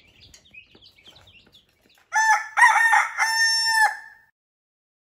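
Faint peeping of baby chicks, then a rooster crows once, loud, about two seconds in: a crow in three parts ending on a long held note.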